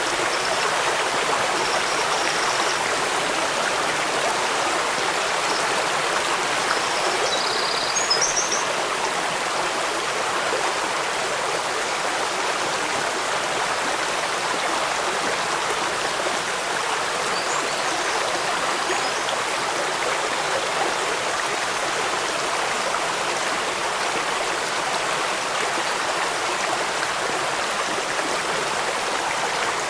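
Running water rushing steadily, like a stream or cascade over rocks, with a few faint high chirps near the start, about a quarter of the way in and around the middle.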